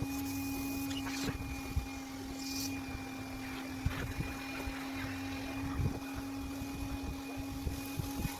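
Electric air pump running with a steady hum as it inflates a vinyl inflatable wolf toy, with scattered clicks and rustles; the hum changes abruptly at the very end.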